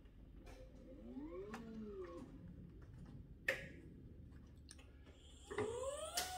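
Electric motor of a Multi Mover XL trailer mover whining in short inching pulses. A brief run at the start rises and falls in pitch within about a second. There is a sharp click a little past halfway, and near the end the motor spools up again and holds a steady whine.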